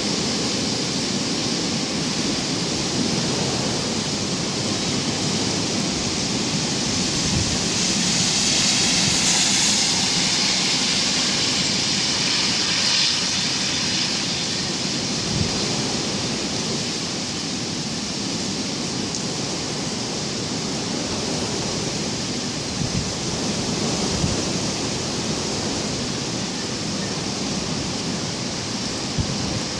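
Storm wind blowing steadily, with gusts buffeting the microphone in a few low thuds. A louder hiss swells about eight seconds in and dies back a few seconds later.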